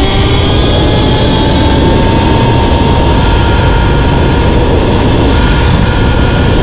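Sur-Ron electric bike's motor whining as the bike accelerates, rising in pitch for about the first two seconds and then holding steady, under heavy wind rush on the microphone.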